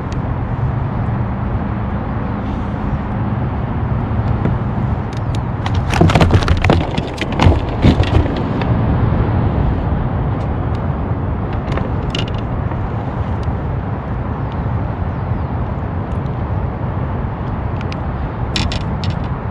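A sand bass being brought in and landed on a kayak: a burst of loud splashing and knocking about six to eight seconds in, then a few light clicks, over a steady low rumble.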